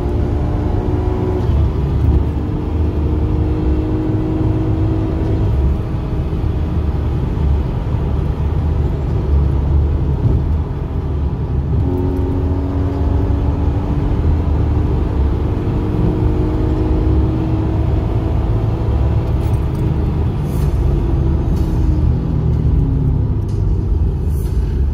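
BMW compact M3's engine heard from inside the cabin at road speed over a heavy, steady low rumble of road and tyre noise. The engine note climbs slowly in two long pulls and falls away near the end as the car eases off.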